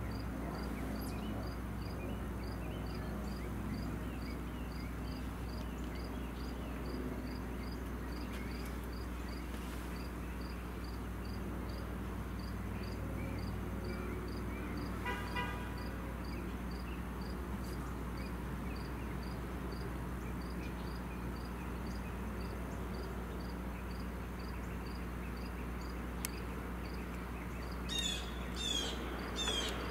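Crickets chirping steadily, a regular high chirp about twice a second, over a low steady rumble. A short tone sounds about halfway through, and a few quick high sweeping chirps come near the end.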